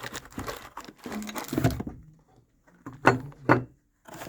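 Monitor-arm mounting parts being handled: light clatter and rustling for about two seconds, then, after a short pause, two sharp knocks half a second apart as hard parts are set down or knocked together.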